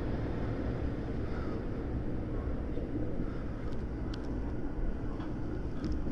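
A 521-series electric train running as it pulls out of a station, heard from inside the front car: a steady low rumble with a few faint clicks past the middle and near the end.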